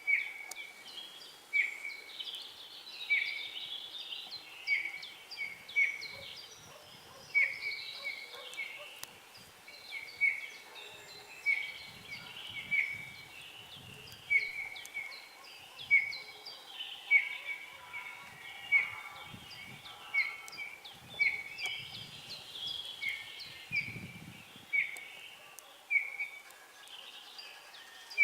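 Wintering birds calling: one short, clear note repeated about once every second or so, over quieter, higher twittering.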